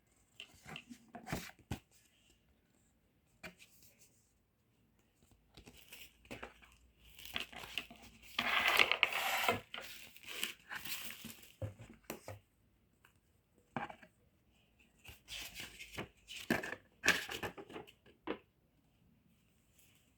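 Packaging being torn open and crinkled by hand, with scattered taps and rustles; the longest and loudest stretch of tearing comes about eight to eleven seconds in.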